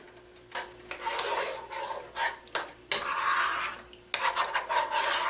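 A utensil scraping and rubbing across the bottom of a nonstick frying pan in irregular strokes, stirring broth and crushing bouillon cubes in it, with light clicks against the pan.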